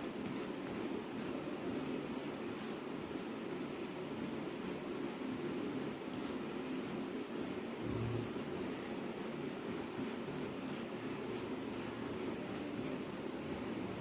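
Fingers patting a ball of thick vada batter thin on a damp cloth, light pats about three a second over a steady low hum.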